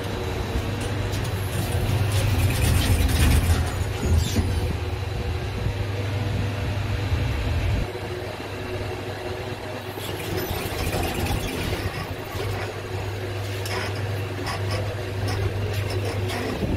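Passenger lift car running as it travels down: a steady low hum with a deeper rumble under it that stops suddenly about eight seconds in, the hum carrying on until near the end.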